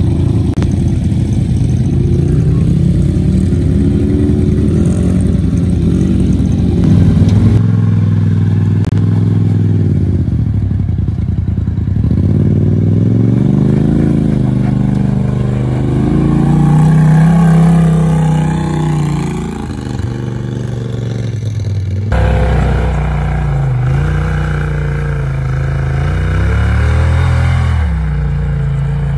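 Off-road dune buggy and side-by-side UTV engines running and revving up and down. The sound changes abruptly about a quarter of the way in and again about three quarters of the way in, as one vehicle's engine gives way to another's.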